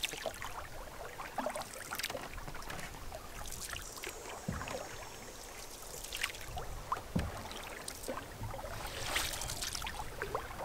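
Canoe paddle strokes in lake water: the blade dipping and swishing, with water trickling off it, and a couple of light knocks.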